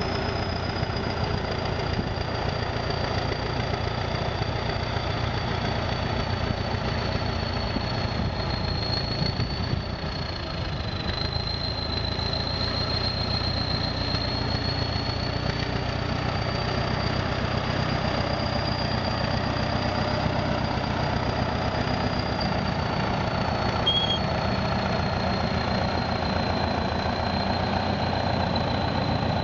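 Diesel engine of a ChTZ T-130/T-170 crawler bulldozer running steadily with a dense low rumble while the machine pushes earth, with a thin high whine drifting slightly in pitch above it.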